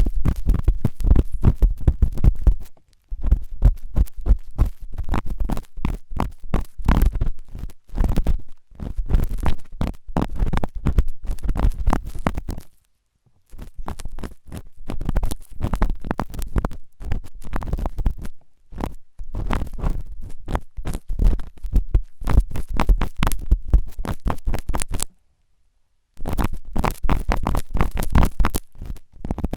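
Forceful ASMR ear cleaning: a tool rapidly scraping and scratching at an ear right against the microphone, in long runs of dense strokes broken by a few brief pauses.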